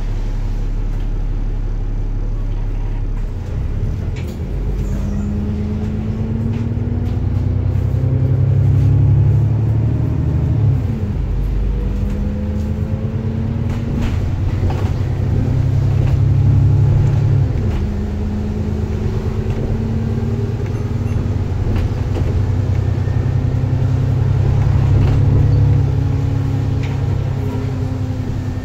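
Alexander Dennis Enviro400MMC double-decker bus heard from inside its saloon: a low hum at rest, then from about four seconds in the engine pulls away and accelerates. Its note climbs and drops back twice at gear changes, then settles into steady running.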